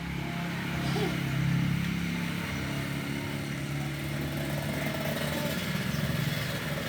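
Motorcycle engine running steadily, a little louder about a second and a half in.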